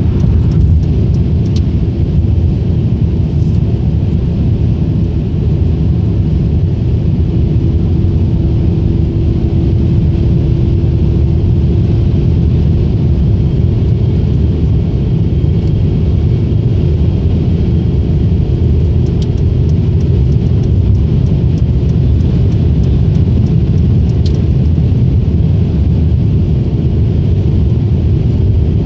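Steady low rumble of a car cruising at highway speed, tyre and road noise with engine drone, heard from inside the cabin.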